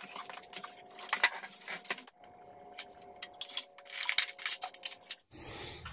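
Steel chains and hooks on an engine hoist's equalizer bar clinking and jangling as they are handled, a run of irregular light metallic clinks over a faint steady hum.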